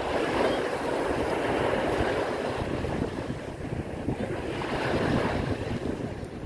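Small waves breaking and washing up over a pebbly shoreline, surging and easing, louder near the start and again about five seconds in. Wind buffets the microphone underneath.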